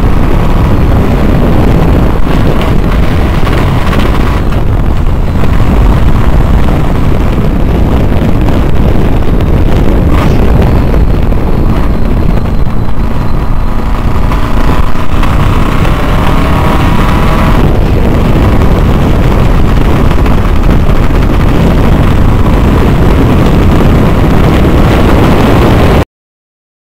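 Supercharged Studebaker 289 V8 (McCulloch supercharger) running hard at racing speed, heard from the open cockpit with wind noise on the microphone; the engine note shifts several times through the turns and then cuts off suddenly near the end.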